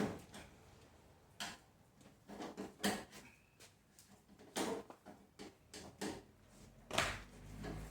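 Scattered light clicks and knocks, about half a dozen over several seconds, of screws and parts being handled and fitted by hand.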